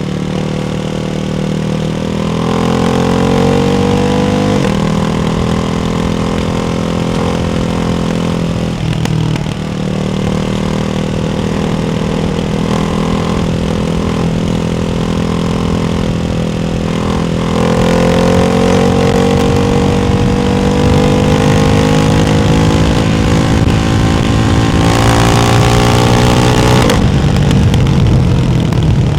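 Ducati Hypermotard 698 Mono's single-cylinder engine through a baffled Termignoni exhaust, pulling up through the gears. The pitch climbs steadily, then breaks and drops several times at the shifts. A louder, harder pull comes near the end before it drops off.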